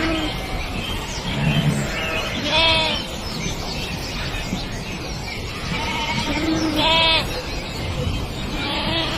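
An animal calling twice, about four seconds apart; each call is a short, wavering cry, over a busy steady background.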